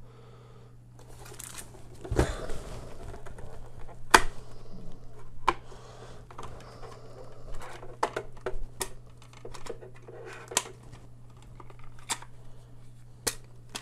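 Plastic clicks, knocks and rattles of a photo printer's paper cassette being handled, pushed against the printer and its lid opened, with scattered sharp clicks over soft handling noise and a steady low hum underneath.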